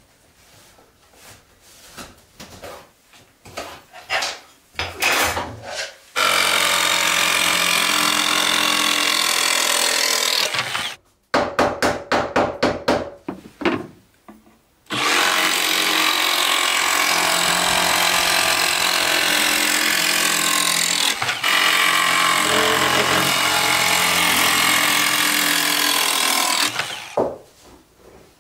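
Cordless jigsaw cutting a laminate floor plank: two long, steady runs of the saw, with a string of short stop-start bursts between them. Knocks and clicks of the planks being handled come before and after.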